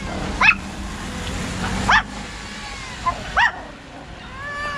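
A dog barking, three sharp barks about a second and a half apart.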